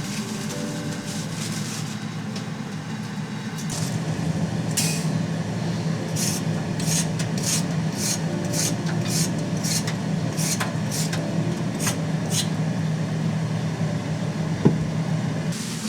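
A run of short scraping strokes, about one or two a second for several seconds, over a steady low hum. The scraping comes from kitchen food preparation. There is a single knock near the end.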